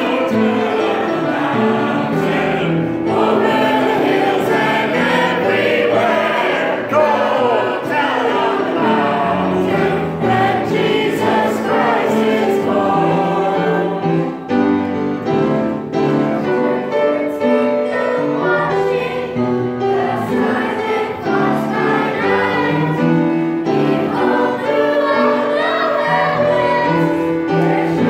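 Children's choir singing a Christmas song together.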